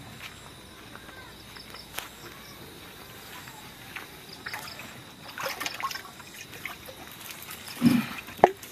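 Water trickling faintly, with scattered small knocks and a louder thump and click near the end.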